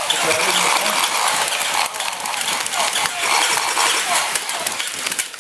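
Battery-powered crawling toy army soldier working its way across a hard floor: its small geared motor and plastic limbs clatter steadily with many fast clicks.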